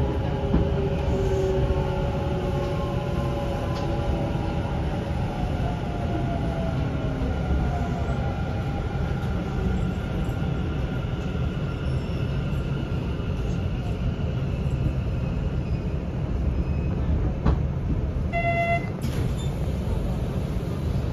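Hanshin 1000 series electric train heard from inside the car: steady rail running noise, with the Mitsubishi IGBT inverter and traction motor whine falling in pitch over the first several seconds as the train slows. A brief tone sounds near the end.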